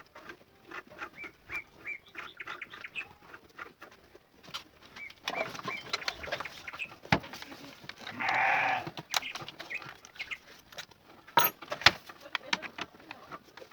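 Animal sounds: a run of short chirps in the first few seconds, a longer, louder call about eight seconds in, and scattered sharp knocks.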